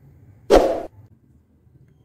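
A single short swish of noise lasting about a third of a second, starting abruptly about half a second in and cutting off sharply: an editing sound effect accompanying the animated subscribe-button overlay.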